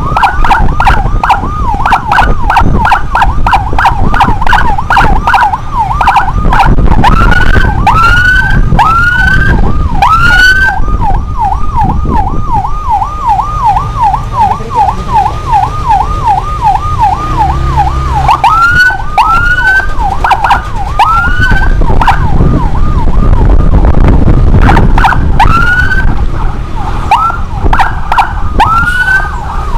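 Electronic emergency siren sounding a fast yelp of about four warbles a second, broken three times by short runs of rising whoops, over a heavy low rumble.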